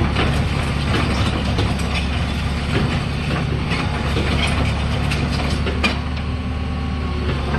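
Hitachi ZX60 excavator's diesel engine running steadily, with many short metallic clicks and clanks over it.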